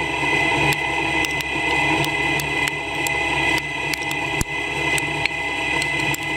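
CNC lathe running at a steady speed while machining a chess piece: a steady whine over a low hum, with irregular sharp ticks scattered through it.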